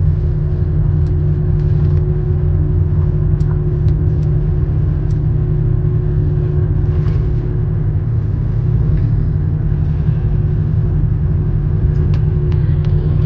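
Steady low rumble of road and engine noise heard inside a car's cabin while cruising at highway speed, with a faint steady hum and a few light clicks.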